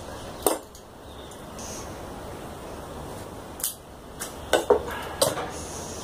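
Pruning shears snipping through Ficus benjamina roots: one sharp metallic click about half a second in, then a quick run of about five clicks and snips in the last two and a half seconds.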